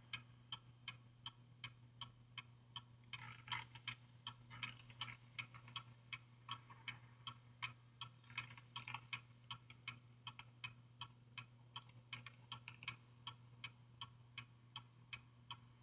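Car turn-signal indicator clicking steadily and faintly, about three ticks a second, over a low steady hum.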